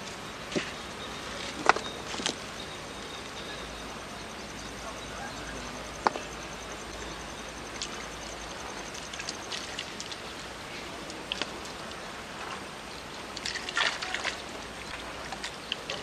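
Steady hiss of running water at a dam, with scattered short sharp clicks and taps, the loudest about two and six seconds in and a quick cluster near the end.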